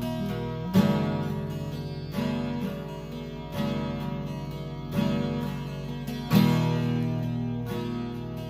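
Acoustic guitar music, with a chord strummed about every second and a half.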